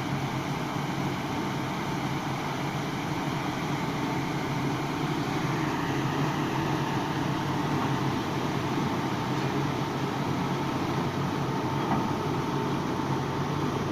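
DTW-241 tire washing machine running: a steady, unbroken mechanical hum with a constant noisy wash over it, without change or break.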